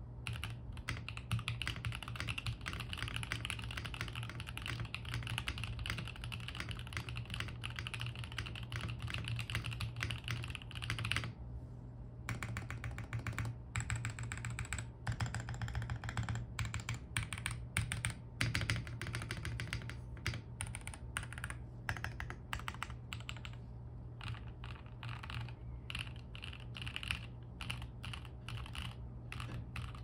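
Typing on a Neo65 65% mechanical keyboard with lubed Rebult Penyu switches, ABS keycaps and foam-dampened plate and case. The clacking is fast and dense at first, stops briefly about eleven seconds in, then goes on with more spaced-out keystrokes.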